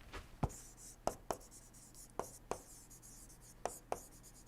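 Pen writing: faint scratching and about seven short, light taps of the pen, several in close pairs.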